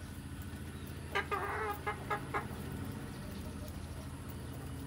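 Chickens feeding: one call about a second in, followed by three short clucks. A steady low hum runs underneath.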